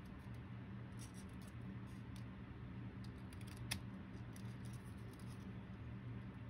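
Scissors snipping short slits into a folded paper index card: a series of light, faint snips, with one sharper click about three and a half seconds in, over a faint steady low hum.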